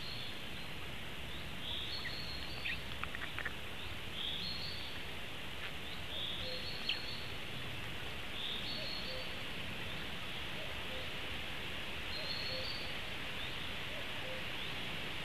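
A small songbird repeats a short high call every two seconds or so over a steady hiss of forest background, with a few brief soft clicks about three and seven seconds in.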